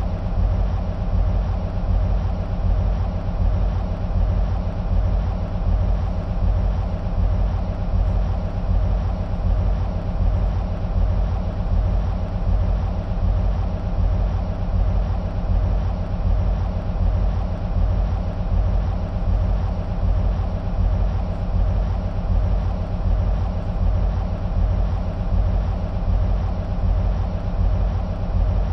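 EMD SW1500 switcher locomotive's 12-cylinder two-stroke diesel idling: a steady, deep rumble with an even, regular pulse.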